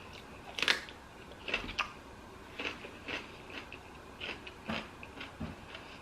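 Close-miked chewing of a lettuce-wrapped sandwich with peppers: irregular short mouth clicks and smacks, the loudest less than a second in.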